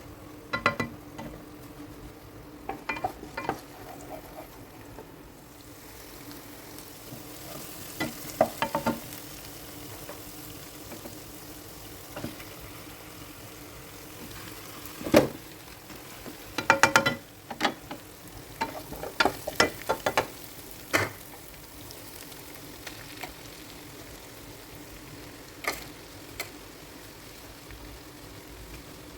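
Food sizzling in a hot wok, with a metal spatula clattering and scraping against the pan in several short bursts of stirring. A low steady hum runs underneath.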